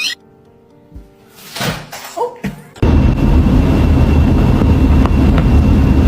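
A few soft knocks and a brief sweeping noise, then loud bass-heavy music that starts abruptly about three seconds in.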